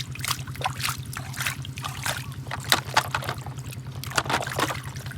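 Water dribbling and splashing in short, irregular bursts, over a steady low hum.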